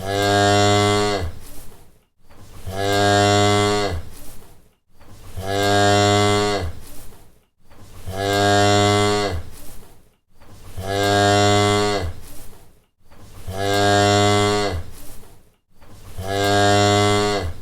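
A cow mooing: the same low moo repeats seven times, one about every two and a half to three seconds. Each moo is held steady for about two seconds and drops in pitch as it ends.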